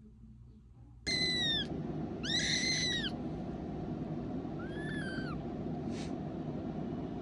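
A small kitten mewing in high-pitched cries: three calls, starting about a second in, the last one fainter and broken in two. A steady background noise runs under the calls.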